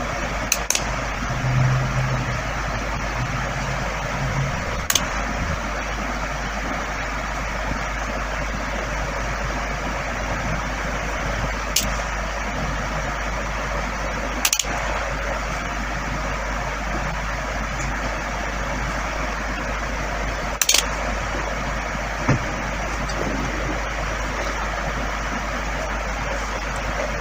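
Steady background hiss with about half a dozen short clicks and taps scattered through it, and a brief low hum in the first few seconds.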